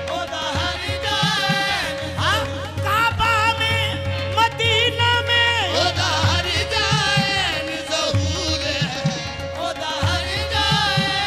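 Qawwali music: a voice sings ornamented, sliding lines over a steady held drone note, with hand-drum beats underneath.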